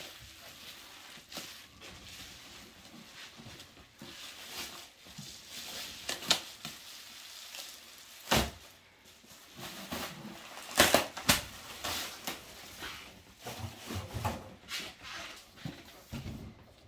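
Clear plastic wrapping crinkling and rustling as it is pulled off a slipcased set of large hardcover books. A heavy thud about eight seconds in as the boxed set is put down on the table, and a few sharp knocks a couple of seconds later.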